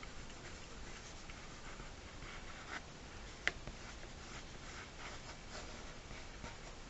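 Felt-tip inking pen scratching short, quick strokes on paper, faint and irregular, with one sharp tick about halfway through.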